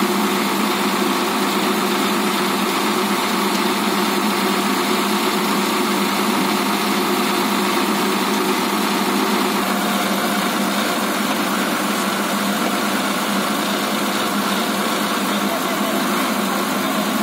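Crane truck's diesel engine running at a steady speed, powering the truck-mounted Palfinger knuckle-boom crane as the boom is moved. A constant even hum with a slight shift in tone about ten seconds in.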